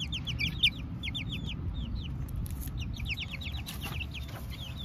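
Young chickens peeping: quick runs of short, high notes, each falling in pitch, thinning to scattered peeps after the first couple of seconds. There is a brief thump about half a second in.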